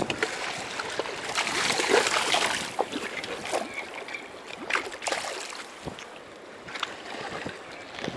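Shallow river water rushing and splashing as a hooked salmon thrashes during the fight, with scattered short splashes and knocks, busiest in the first few seconds.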